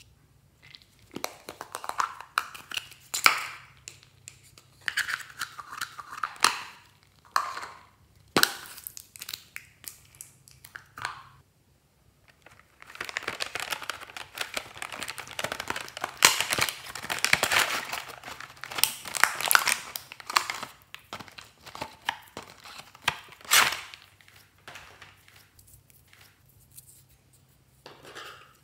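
Plastic crinkling and tearing as piping bags and plastic containers are handled and opened, in irregular stretches of rustling, with a longer continuous stretch near the middle and a few sharp clicks.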